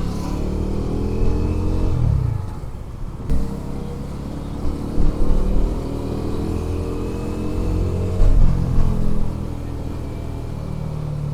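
Bajaj Dominar 400's single-cylinder engine pulling through the gears, its pitch rising and then dropping at a gear change about two seconds in and again about eight seconds in. A few short thumps break in around the middle and just after the second change.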